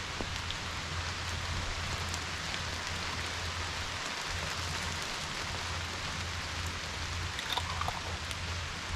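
Steady rain falling, an even hiss with a few scattered drop ticks, over a low steady hum.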